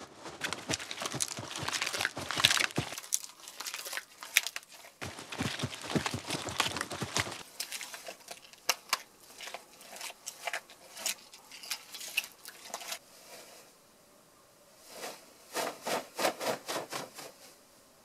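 Foley of raw meat being squeezed and torn by hand, making wet crackling and crunching. The sound is dense for the first seven seconds or so, then thins to scattered crunches, with a last flurry near the end.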